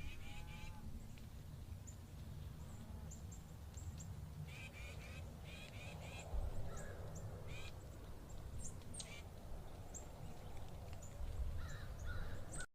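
Birds calling in woodland: many short, high chirps throughout, with several bursts of rapidly repeated harsher calls, over a faint, steady low rumble of outdoor background.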